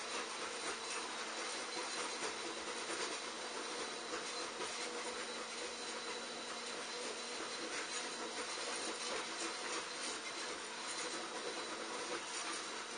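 Steady background hiss with a faint low hum, no distinct event.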